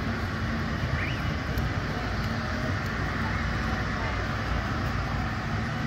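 A jet airliner taxiing, its engines running steadily, with the chatter of a crowd of people.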